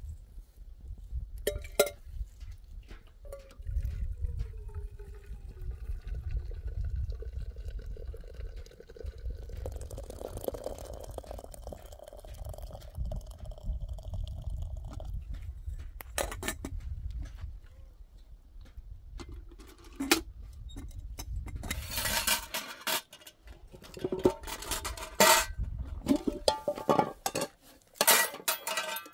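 Kitchenware clinking: a few scattered knocks, then a dense run of clinks and knocks over the last several seconds. Liquid sounds come earlier, over a low steady rumble.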